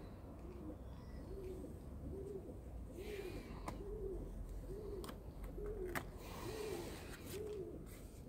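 A pigeon cooing over and over: low, evenly spaced coos, each rising and falling, about three every two seconds. A few sharp clicks and a rustle of sketchbook pages being handled come in the middle, the loudest near the end of them.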